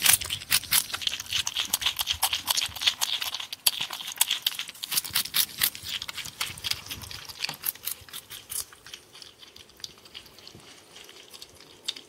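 Porcupine chewing a piece of sweet potato close up: rapid crunching bites with sharp clicks, thinning out and getting quieter after about eight seconds.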